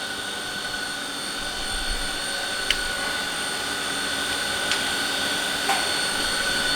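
Haas Minimill CNC vertical mill running a program: a steady high spindle whine over a hiss, slowly growing louder, with three light ticks in the second half.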